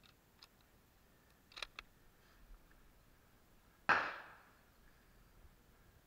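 Two quick metallic clicks from handling the bolt action of a Mauser M24/47 rifle, then, about four seconds in, a single sharp gunshot with a short echoing tail.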